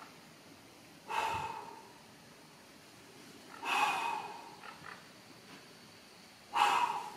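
A boulderer's hard exhalations of effort while hanging under a roof, three of them about two and a half seconds apart, each a short, forceful breath out with a bit of a grunt in it, one for each hard move.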